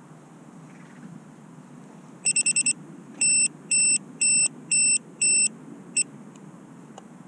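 Electronic beeping from a grounded FPV quadcopter's flight controller or ESCs: a quick run of five short beeps, then five longer beeps at about two a second, and one last short beep.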